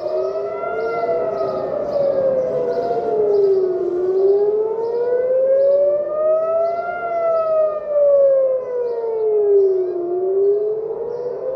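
Civil defence air-raid sirens wailing, the pitch rising and falling slowly in cycles of about six seconds, with a second siren overlapping out of step. This is the alert warning of incoming rockets.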